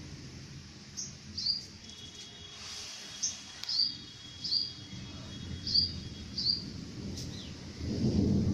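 A bird chirping about seven times, short high notes spread through the stretch, over a steady low rumble of thunder that swells loudest near the end.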